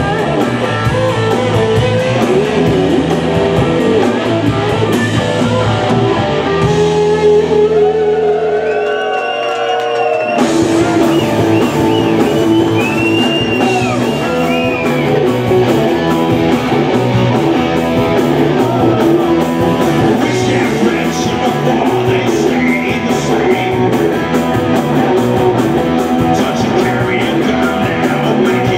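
Live rock band playing loud: electric guitars, bass guitar and drum kit. About five seconds in the drums drop out and held guitar tones carry on alone, thinning out, then at about ten seconds the whole band comes back in together and plays on.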